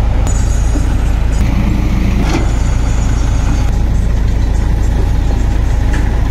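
Diesel engines of a Tata Hitachi excavator and a farm tractor running steadily and loudly as the excavator swings its bucket over the tractor's trailer. There is a short clunk about two and a half seconds in.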